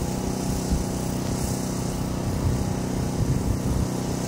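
A small engine running steadily at a constant speed, a low even hum with no change.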